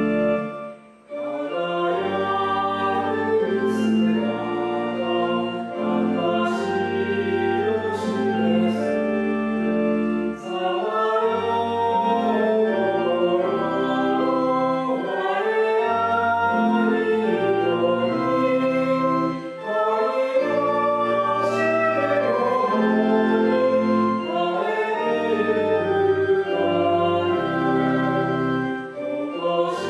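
A hymn sung to organ accompaniment, held notes moving phrase by phrase, with a short break about a second in.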